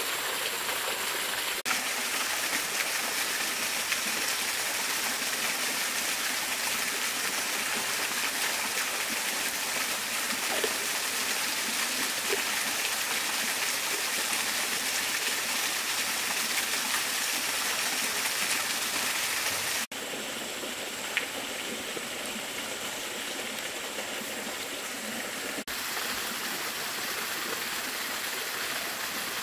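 Steady rush of running water from a stream and waterfall. It drops somewhat in level about two-thirds of the way through and comes back up a few seconds later.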